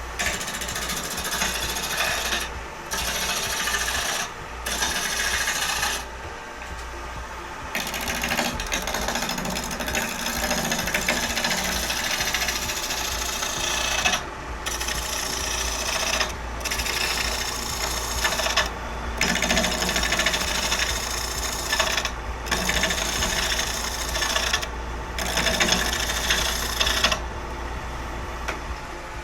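Wood lathe running while a roughing gouge cuts a spinning lignum vitae bowl blank: harsh scraping cuts in stretches of a few seconds, broken by brief pauses as the tool comes off the wood, over the lathe's steady low hum. The cutting eases off near the end.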